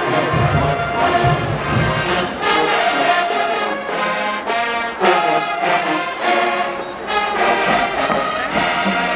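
A marching band's brass section playing loud held chords, with new chords and accents entering every second or so.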